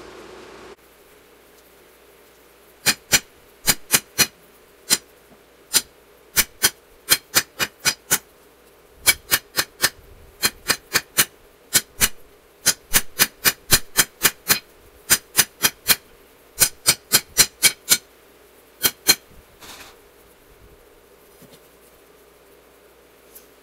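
Hand hammer striking hot steel on an anvil: a few dozen sharp, ringing blows in quick runs of two to four, forging a ball-peen hammer head into a tomahawk. The blows start about three seconds in and stop a few seconds before the end, over a faint steady hum.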